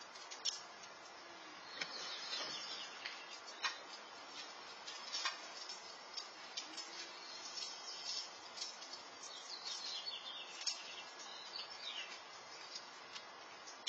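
Small birds chirping and twittering over a steady outdoor hiss, with a few sharp clicks scattered through.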